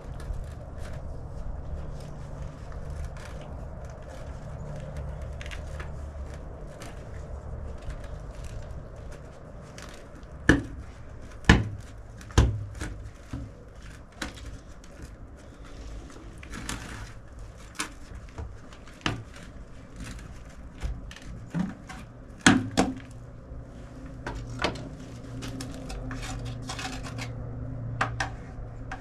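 Hard objects being handled and knocked together: scattered clicks and clatter, with a few sharp knocks about ten to twelve seconds in and again a little past twenty-two seconds, over a low steady hum.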